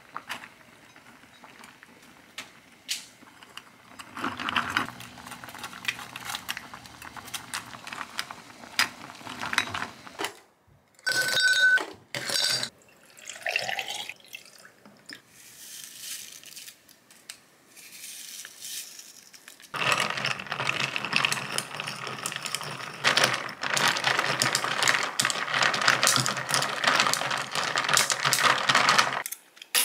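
Water poured from a plastic bottle over ice cubes in a glass, then the drink stirred with a long stirrer, the ice clinking and rattling against the glass for about nine seconds near the end.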